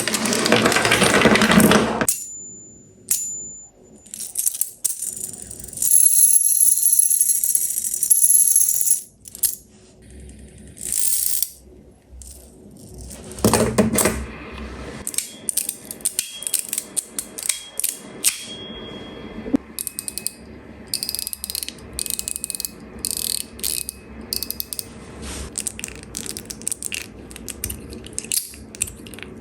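Metal fidget spinner being handled and spun: sharp metallic clicks and clinks, with stretches of a steady high ringing whir while it spins, and a quick run of clicks in the last third.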